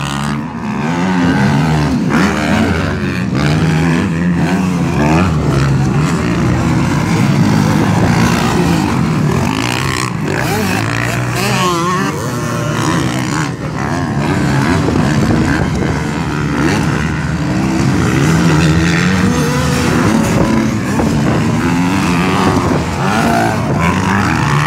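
Dirt bike engines revving on a motocross track, the pitch rising and falling over and over as the riders accelerate, shift and back off through the jumps.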